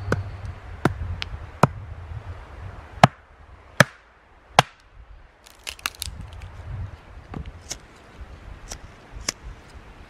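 A series of sharp knocks or cracks at uneven spacing, the loudest in the first half coming about one a second, followed by lighter clicks.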